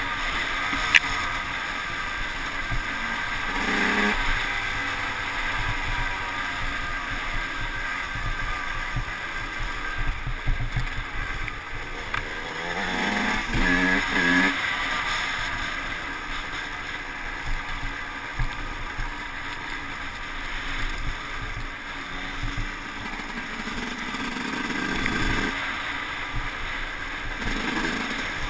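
Yamaha YZ125 two-stroke dirt bike engine heard from the rider's helmet camera, revving up and down as it rides a gravel track, under steady wind noise. A sharp click about a second in.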